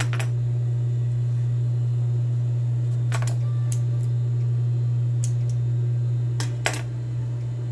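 Industrial straight-stitch sewing machine motor humming steadily while the needle is not stitching. A few scattered sharp clicks come over the hum.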